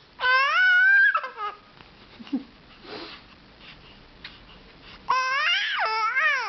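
Two long, drawn-out non-speech vocal calls from one voice, each rising and then falling in pitch, the first just after the start and the second near the end.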